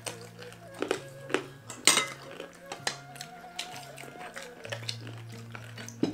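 Metal spoons and a ladle clinking and scraping against plates and a glass soup bowl during a meal, with one sharp clink about two seconds in. A soft backing tune plays underneath.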